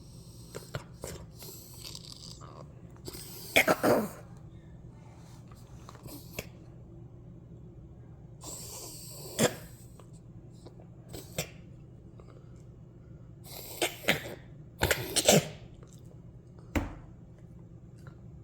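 Several bouts of harsh coughing, the densest cluster of coughs near the end, with labored, breathy breathing in between.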